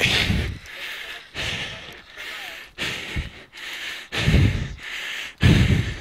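A runner breathing hard while running, in regular puffs a little more than a second apart, the last two the loudest.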